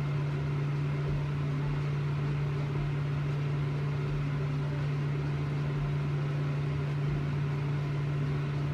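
A steady low mechanical hum with one constant low tone that never changes.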